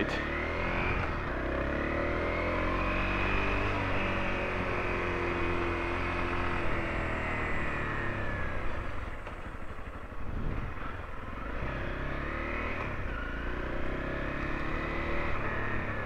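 Honda CRF250L's single-cylinder four-stroke engine pulling away from a stop and accelerating, its pitch rising and then dropping through the gears, then rising again and easing off near the end as the bike slows.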